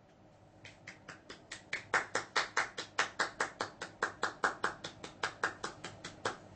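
Hand clapping at a steady, even pace of about five claps a second, starting about half a second in, building up, then tailing off near the end.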